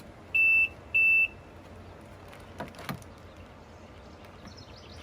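Two short electronic beeps from a jet ski's control system, the same steady pitch each time, as it is powered up before starting.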